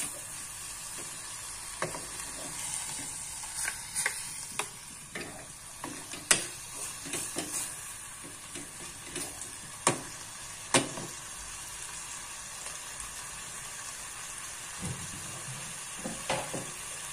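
Sliced beef sizzling as it is stir-fried in a small enamel saucepan, with a spatula scraping and knocking against the pan. The stirring clicks come often in the first eleven seconds or so, then thin out.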